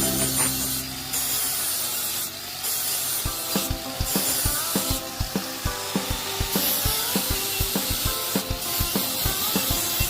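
Rapid repeated strokes of a hand tool on the propeller being shaped, about three a second, starting a few seconds in, over background music.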